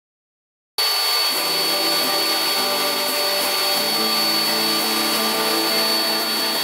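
A steady whirring like a small electric motor running, with a thin high whine, starting abruptly about a second in.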